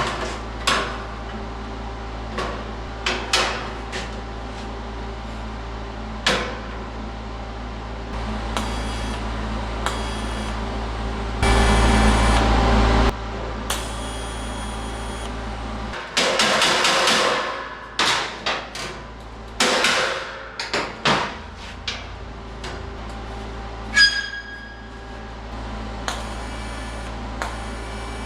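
Hammer striking the sheet-steel door-skin flange in scattered, uneven blows, with one blow near the end ringing briefly. A steady low hum runs underneath and stops about halfway through.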